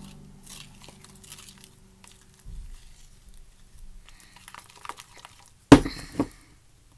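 Slushy slime made with instant snow being mixed by hand, giving soft crackling and crunching with small clicks. About three-quarters of the way through come two sharp knocks, the first the loudest.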